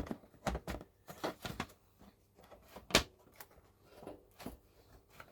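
Plastic Scalextric slot-car track section being slid and fitted into place: a scattered run of light clicks and knocks, the sharpest about three seconds in.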